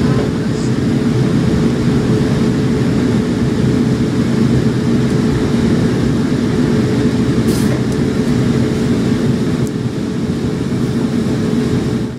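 Class 450 Desiro electric multiple unit running, heard from inside the carriage: a steady rumble of running noise with a hum of several held tones under it. It cuts off suddenly at the very end.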